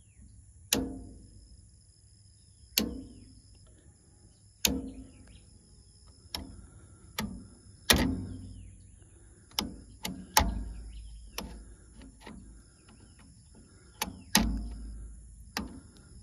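DC circuit breakers and DIN-rail fuse holders in a solar PV combiner box being snapped off one after another: about fourteen sharp clicks at uneven intervals, each ringing briefly. This is the array's strings being disconnected and shut down.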